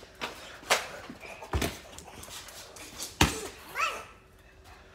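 Boxing gloves striking a brick wall, three sharp hits spread over about three seconds with the last the loudest, followed by a brief high cry that rises and falls.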